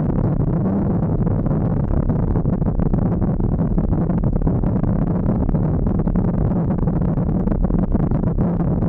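Yamaha XT1200Z Super Ténéré's parallel-twin engine running steadily as the motorcycle picks up speed on a loose gravel road. The tyres crunch over the gravel, with many small clicks of stones through it.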